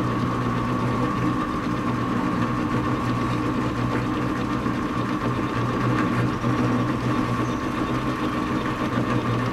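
Metal lathe running with a steady hum and a high whine, its chuck spinning while a cutoff tool is fed by hand into hex stock. The cut is interrupted until the tool gets past the corners of the hex.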